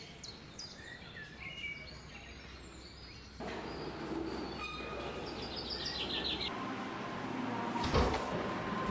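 Background ambience with short high chirps now and then. A steady tone sets in about two-thirds of the way through, and a brief thump comes near the end.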